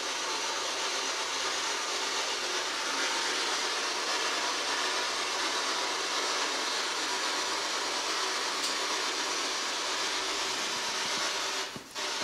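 Handheld P-SB7 spirit box radio scanning through the bands, giving a steady hiss of radio static. The static drops out briefly near the end, then resumes.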